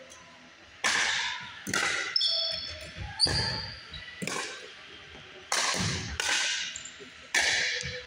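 A pickleball rally: paddles striking the hollow plastic ball, with ball bounces on the hardwood court. There are about seven sharp pocks at uneven intervals, each echoing in the gym.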